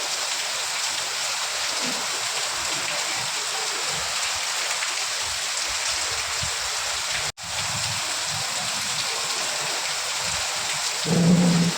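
Steady rain falling, an even hiss of many drops. It cuts out for an instant about seven seconds in, and a short low hum rises over it near the end.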